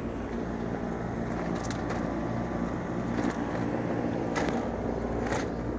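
Steady low mechanical hum and rumble of outdoor background noise, with a few light footsteps near the end.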